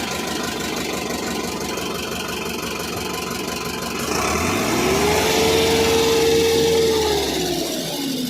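A diesel engine running, revving up about four seconds in, holding the higher speed for about three seconds, then dropping back toward idle near the end.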